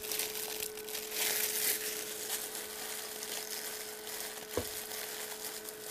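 Plastic glove crinkling as a hand handles peacock eggs in an incubator, with short hisses of a spray bottle misting the eggs to keep them hydrated. A faint steady hum runs underneath, and there is one light knock late on.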